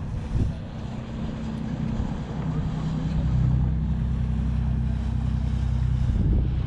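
An engine running steadily with a low hum and a rushing noise over it, growing louder about three seconds in.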